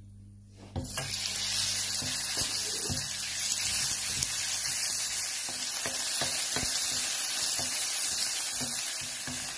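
Minced meat dropped into hot oil in a wok, sizzling suddenly about a second in and then frying with a steady hiss. Taps and scrapes of a wooden spatula stirring the meat come through the sizzle.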